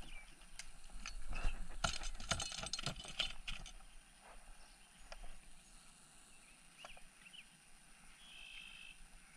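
Clicking and rattling of fishing tackle handled in the hands while a soft-plastic bait is worked onto a hook. A dense run of clicks and knocks comes in the first few seconds, followed by scattered light ticks.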